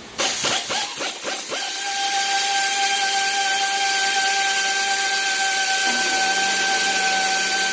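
A few knocks of metal tools, then about a second and a half in a shop air compressor starts and runs steadily with a hissing whine.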